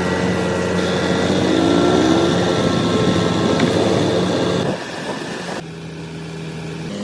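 Heavy vehicle engine running steadily. The sound changes abruptly a few times and drops in level about five seconds in.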